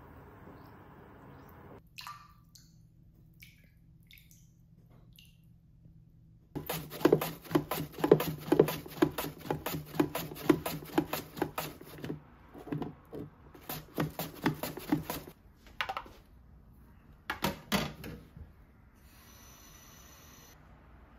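Food being sliced on a plastic mandoline slicer, with fast, regular scraping strokes at about four a second that stop and start a few times. Near the end a kitchen tap runs water into a plastic container.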